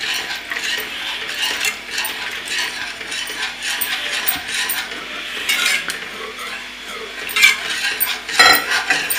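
A metal utensil stirring and scraping round the inside of a metal kadhai, mixing milk into a flour-and-ghee roux for white sauce: a continuous run of scrapes and light clinks, with a few louder strokes in the second half.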